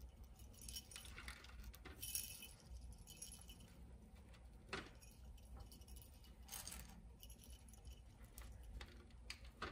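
Faint, scattered jingling of small bells on tinsel wrist garlands, shaken a few times as the hands move.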